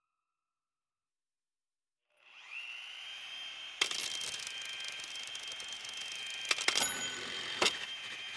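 Silence for about two seconds, then a steady high mechanical whine with a hiss fades in, broken by several sharp clicks and knocks.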